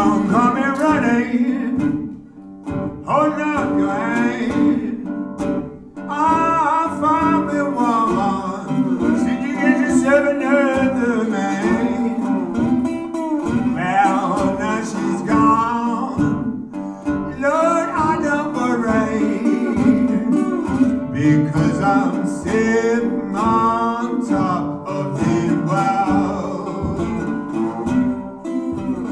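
Live acoustic blues: a man singing over a metal-bodied resonator guitar played with a slide.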